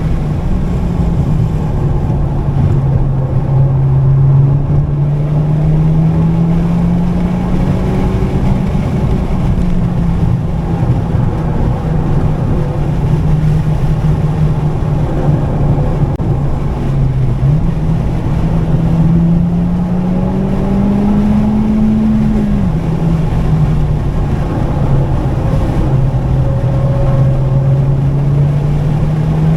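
2019 Honda Civic Type R FK8's turbocharged four-cylinder engine pulling hard at track speed over heavy road and wind noise. The engine note climbs slowly and then falls back several times; the longest climb ends in a sudden drop a little past two-thirds of the way through.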